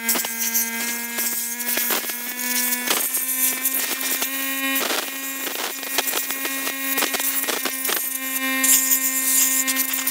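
A steady low buzz, wavering slightly in pitch, runs throughout, with frequent sharp clicks and rattles as a stiff wire is handled around the tractor's battery.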